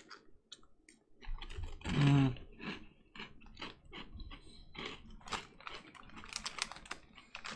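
Plastic crisp packet crinkling and crackling in the hands, a quick irregular run of sharp crackles. A brief voiced hum about two seconds in.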